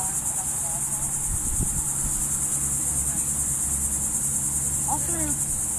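Steady, high-pitched buzzing of an insect chorus. A brief wavering squeal is heard about five seconds in.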